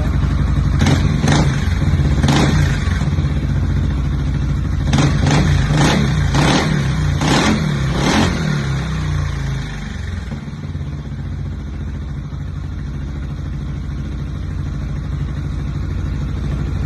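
Kymco Xciting S 400i scooter's single-cylinder engine through an Akrapovic full-system exhaust with silencer tip, revved in a series of quick throttle blips over the first eight seconds or so. It then settles back to a steady idle.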